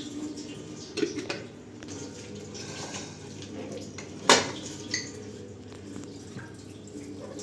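Dishes and cutlery clinking over a steady wash of running water, with one sharp clatter a little past four seconds in.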